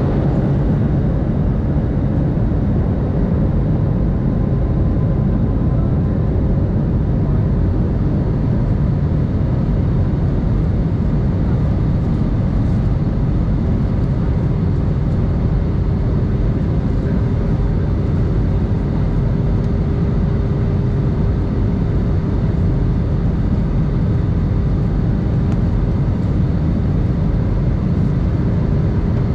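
Steady cabin noise inside an Airbus A319 on descent: engine and airflow noise, heavy in the low end, with no breaks. A faint steady hum joins about halfway through and holds.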